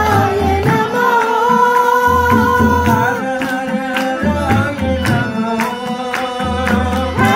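Live devotional bhajan: voices singing long held notes with instrumental accompaniment, over a steady beat of low drum thumps and sharp percussive clicks.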